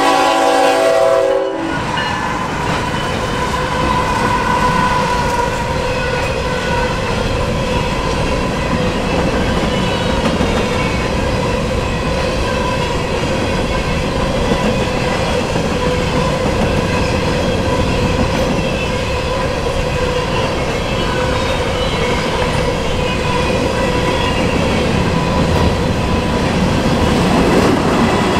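Norfolk Southern GE ET44AC diesel locomotive's horn sounding a chord that cuts off about one and a half seconds in, then the locomotives and a long string of covered hopper cars rolling past at speed, wheels clacking over the rails. A steady pitched tone runs under the rolling noise.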